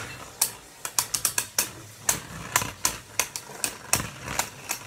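Two Beyblade spinning tops battling in a stadium: rapid, irregular clacks as the tops strike each other and the stadium wall.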